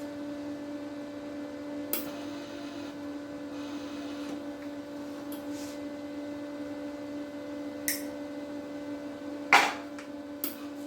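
Steady hum of a powered-on MIG welder, broken by a few sharp clicks, with the loudest snap a little before the end, from handling the machine while its wire-feed tension is set.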